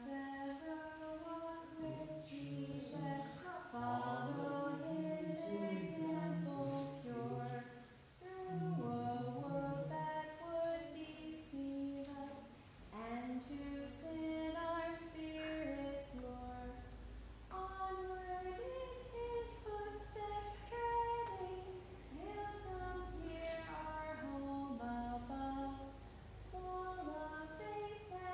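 Voices singing a closing hymn, a lower and a higher part moving together in held, stepwise notes, with little or no accompaniment.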